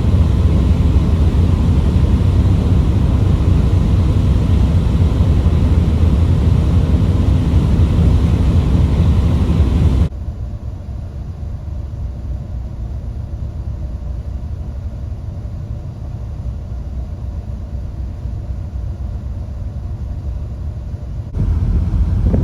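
Steady low rumble of a car ferry under way. About ten seconds in it cuts abruptly to a quieter, duller rumble, and near the end it cuts back to the louder one.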